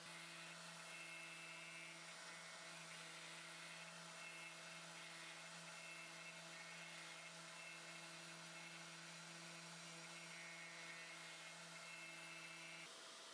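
Carvera Air desktop CNC milling a resin block, heard faint: a steady spindle whine with higher tones coming and going as the axes move. It stops shortly before the end.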